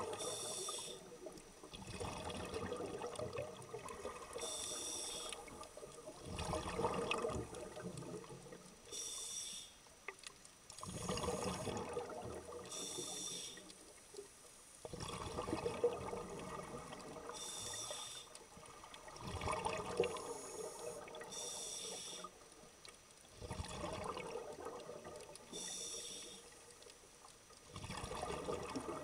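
Scuba diver breathing through a regulator underwater: a short hiss on each inhalation, then a longer bubbling gurgle as the exhaled air escapes. The breaths repeat about every four seconds, seven or so in all.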